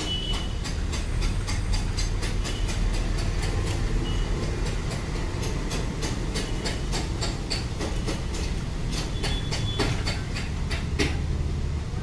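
Hand-operated windshield sealant gun clicking over and over as its trigger is squeezed to push out a bead of adhesive along the windshield frame, over a steady low hum.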